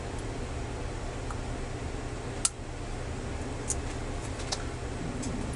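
A few light, sharp metallic clicks from snap-ring pliers working the retaining ring out of a propeller nut lock. The clicks are scattered through the middle and later part, over a steady low background hum.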